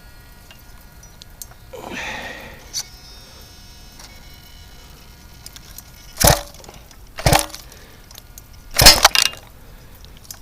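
A brief rustle, then a few sharp clacks and knocks from parts and tools being handled, three loud ones in the second half, the last of them doubled. No engine is running.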